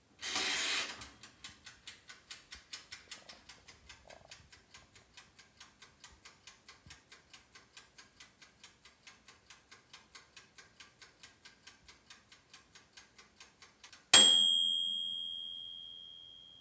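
Toaster oven's mechanical timer: a brief rasp as the dial is wound, then steady ticking about four times a second, ending in a loud bell ding that rings on and fades, signalling the toasting time is up.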